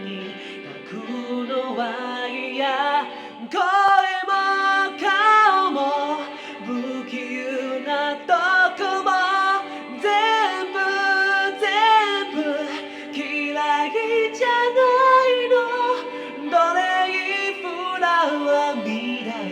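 A song with a singing voice, most likely a woman's, over backing music, the voice sliding and wavering in pitch.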